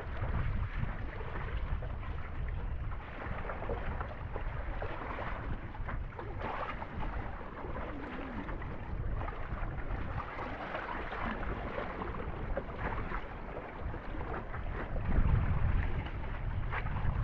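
Wind rumbling on the microphone, a steady low noise that grows a little louder near the end.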